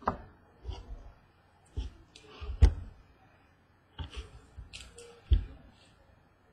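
Baseball trading cards being handled and set down on a desk: a series of taps and knocks with light card clicks. The loudest knock comes about two and a half seconds in, and another strong one just past five seconds.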